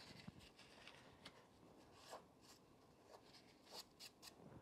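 Near silence, broken by faint rustling and a few light clicks as a paper towel wipes excess grease off a brake caliper slider bolt.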